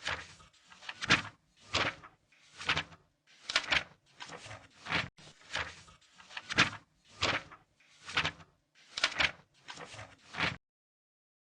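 Paper pages being turned one after another, each a quick papery swish, about one a second, stopping about ten and a half seconds in.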